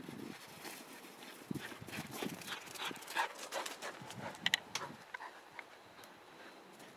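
Two white German Shepherd puppies running and playing on snow and gravel: quick, irregular crunching paw steps mixed with their panting breaths.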